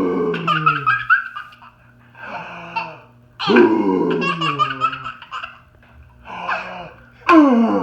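Baby belly-laughing hysterically in three loud fits, about one every three and a half seconds. Shorter, quieter zombie noises from a man come in the gaps between the fits.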